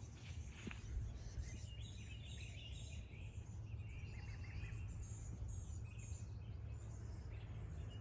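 Small birds chirping and trilling on and off over a steady low background rumble.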